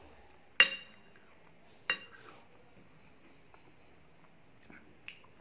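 Metal spoon clinking against a glass plate: two sharp ringing clinks about a second apart, the first louder, then a couple of light taps near the end.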